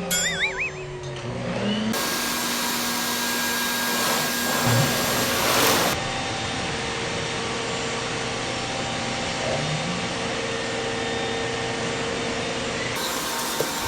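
Vacuum cleaner running, a steady rushing of air over a motor hum. A brief warbling whistle sounds in the first second, and the rushing grows louder for about a second around five seconds in.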